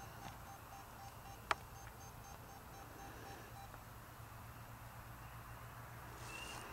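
Quiet background with a faint electronic pulsing, short beeps about four times a second, over a low hum, and one sharp click about a second and a half in.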